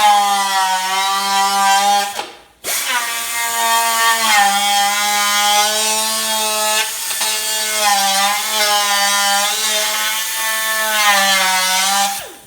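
Electric angle grinder on metal: a short run of about two seconds, a brief stop, then a long steady run, its whine dipping slightly in pitch now and then as it bears on the work.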